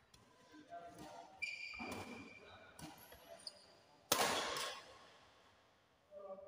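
Doubles badminton rally with racket hits on the shuttlecock and players moving on the court. The loudest event is a jump smash about four seconds in: a sudden loud crack that rings on briefly in the hall.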